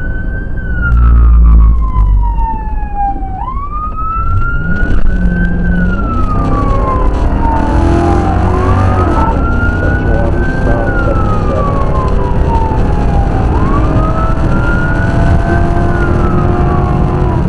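Police car siren sounding the wail: a slow rise and fall repeating about every five seconds. Under it the cruiser's engine and tyres run at highway speed, with the engine climbing in pitch a few seconds in as it accelerates.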